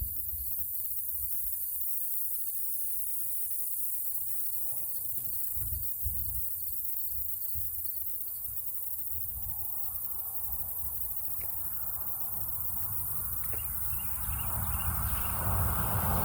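An insect chirping steadily, about twice a second, over a constant high hiss and a low rumble. The chirping stops about halfway through. Near the end a broad rushing noise swells, like an approaching vehicle.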